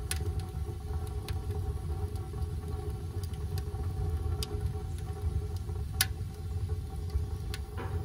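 Wood fire burning in a Camp Chef Alpine wood stove with its damper opened: a steady low rumble with a few sharp pops of crackling wood, the loudest about six seconds in.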